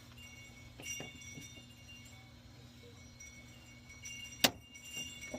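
Light metallic clicks of a Lishi SC1 pick working in a Schlage-keyway door lock, with one sharp, loud metal click about four and a half seconds in and a smaller one near the end.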